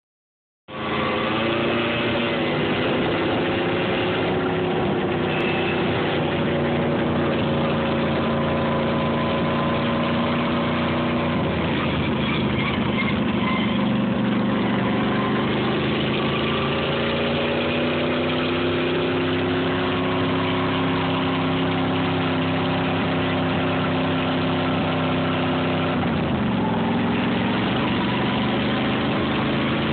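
Ride-on lawn mower engine running steadily. Its pitch sags a little about twelve seconds in, then drops sharply about twenty-six seconds in before climbing back.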